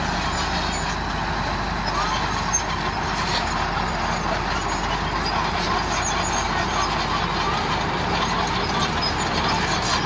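Diesel engine of a Komatsu D31A crawler bulldozer running steadily as the machine travels.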